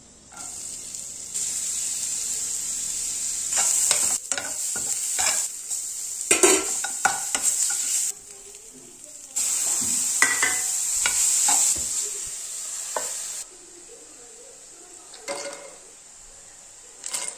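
Chopped onions sizzling as they fry in hot oil in a pan, stirred with a steel spatula that scrapes and knocks against the pan. The sizzle cuts in and out in sections, dropping away about 8 s in and again about 13 s in, and a few metallic clinks come near the end.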